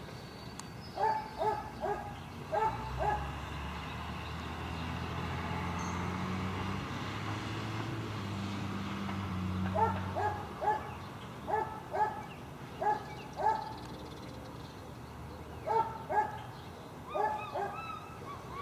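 Dogs barking in quick runs of several sharp barks, with pauses of several seconds between runs. In the middle a steady low rumble builds up and then fades as the barking resumes.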